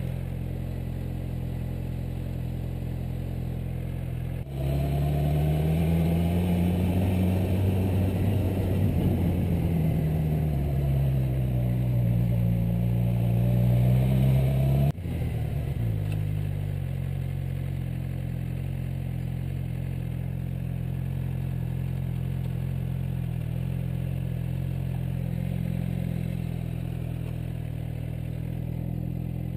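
Suzuki GSX-R600 sport bike's inline-four engine running while riding. About four seconds in it turns suddenly louder for about ten seconds, its pitch rising, falling and rising again with the throttle, then drops back to a steady cruise.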